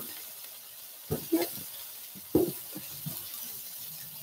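Cauliflower greens sizzling in butter in a non-stick electric skillet, a faint steady hiss, broken by a few short clicks and knocks, the loudest about one and two and a half seconds in.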